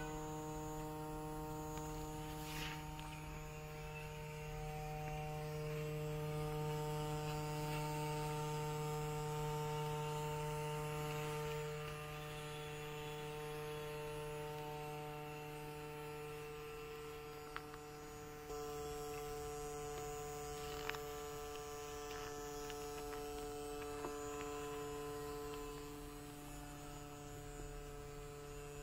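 Steady electrical hum, several even tones held together, with its upper tones shifting slightly a few times and a few faint clicks.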